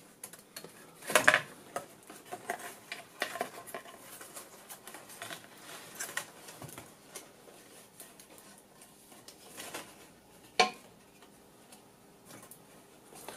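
Hands handling a disassembled missile guidance section: the aluminium housing and circuit boards clink and knock against each other and the bench in scattered small clicks, with two louder knocks, one about a second in and one near the end.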